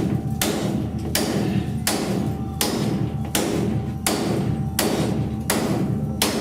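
Body hammer striking a body spoon held against the steel inner roof patch panel, working out a puckered-in low spot: a steady run of about nine sharp knocks, roughly one every three-quarters of a second, over a steady low hum.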